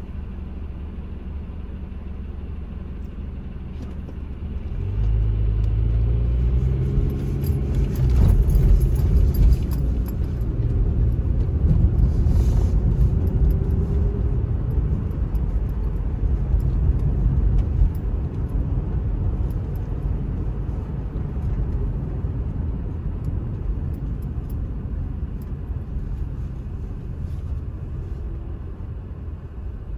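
Car interior engine and road rumble. The engine idles low at first; about five seconds in the car pulls away and the engine note rises as it accelerates. A steady engine and road rumble follows and eases off gradually as the car slows near the end.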